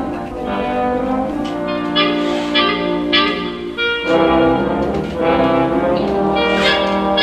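Background orchestral music with brass instruments playing sustained chords.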